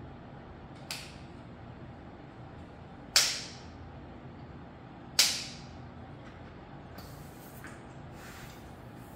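Two loud, sharp knocks about two seconds apart, each dying away quickly, with a fainter click about a second in, made while someone works on a folding electric bike by hand.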